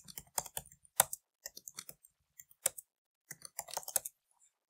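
Typing on a computer keyboard: short irregular keystroke clicks, thinning out into a short pause and then a quick run of keystrokes near the end.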